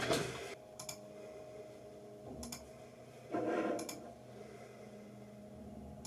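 A few faint, scattered clicks and a short rustling swish about three and a half seconds in, over a faint steady hum.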